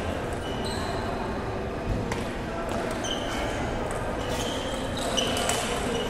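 Table tennis rally: the plastic ball ticks sharply off the paddles and the table, a hit or a bounce every half second to a second, over the murmur of voices in a large hall.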